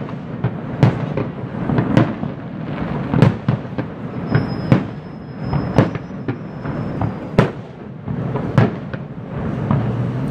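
Fireworks display: a rapid, irregular series of sharp bangs over a steady low rumble, with a faint thin whistle for a couple of seconds near the middle.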